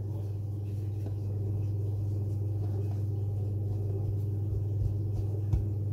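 Steady low hum with a few faint soft taps near the end as hands press pastry into a pie tin.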